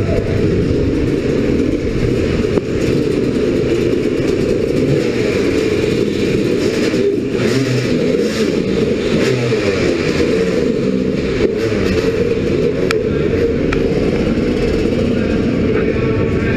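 Dirt bike engine running steadily up close, with other motorcycle engines around it.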